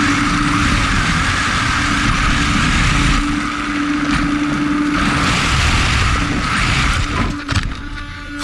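Electric RC car driving fast on a 3-cell LiPo, heard from on board: a steady motor whine under loud rushing wind and tyre noise on the microphone. The rush swells and eases as the speed changes.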